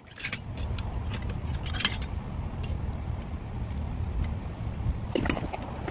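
Wicker basket being opened and handled and garden hand trowels set out on soil, giving scattered light clicks and knocks, over a steady low rumble.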